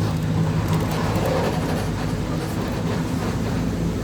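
A vehicle running steadily: a continuous low engine hum over road noise.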